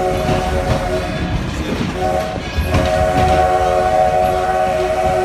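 Steam locomotive's chime whistle blowing a chord of several notes. The first blast breaks off about a second in, a short blast follows about two seconds in, then a long blast runs until near the end. The train's running rumble continues beneath.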